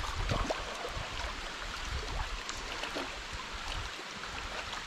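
A hooked chinook salmon splashing and thrashing in shallow river water as it is drawn toward the bank, over the steady rush of the river.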